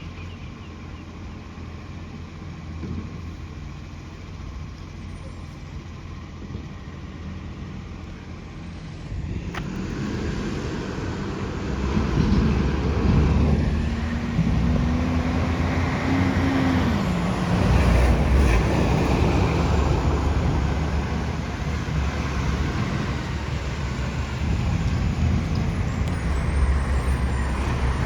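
Recycling truck's diesel engine running with an exhaust leak: steady at first, then about nine seconds in it grows louder and revs, its pitch climbing for several seconds before dropping back.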